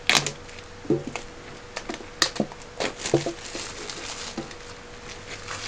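Hands handling a metal Yu-Gi-Oh! trading card tin: a string of irregular clicks, taps and crinkles, over a faint steady hum.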